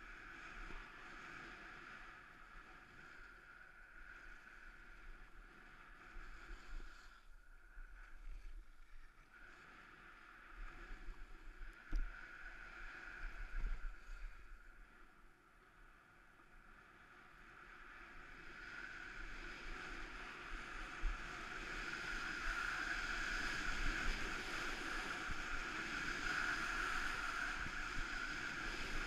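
Skis sliding and carving on packed snow, with wind rushing over the camera's microphone. The noise dips a couple of times early on, then grows louder over several seconds around the middle and holds there as speed builds.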